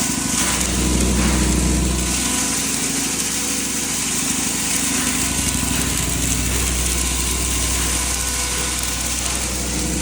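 7.5 hp poultry-feed grinder for maize running steadily: a constant low hum under a high, hissing rush, a little heavier in the first two seconds.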